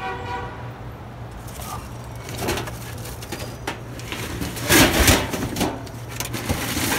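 Rummaging through a dumpster full of trash and film cans: rustling of plastic and cardboard, with scattered knocks and clatters of handled metal film reels and cans, loudest about five seconds in. A steady low hum runs underneath.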